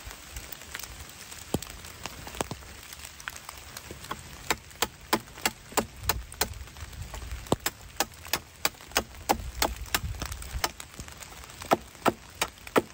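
Knife chopping at a wooden pole held against a log: sharp cuts at roughly three a second, starting about four seconds in. Steady light rain underneath.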